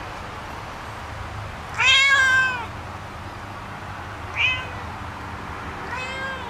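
A domestic cat meowing three times: a long, loud meow about two seconds in, a short one about four and a half seconds in, and another near the end.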